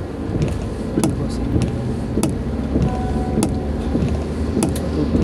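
Inside a moving car in rain: a steady engine and road hum, with the windshield wipers sweeping and giving a sharp click about once a second at each stroke.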